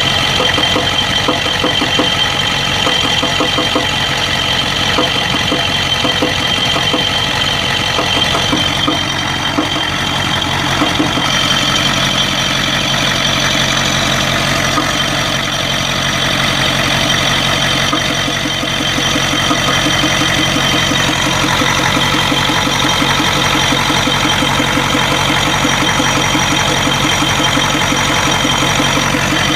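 1992 Ford 7.3 IDI V8 diesel idling with a rhythmic knock like injector knock. The engine suffers random misfire and blowby at idle; teardown found the second compression ring broken on two pistons and a bad valve guide.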